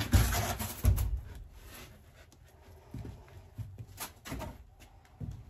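A rotten wooden floor panel being pulled up and handled in a boat's hull: two loud knocks with scraping in the first second, then a few lighter thumps and footsteps.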